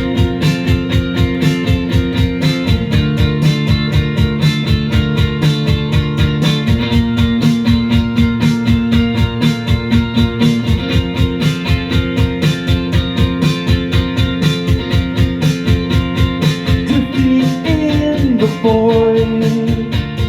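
Live rock band playing the instrumental opening of a song: guitar chords that change every few seconds over a steady, fast rhythm, with gliding bent notes near the end.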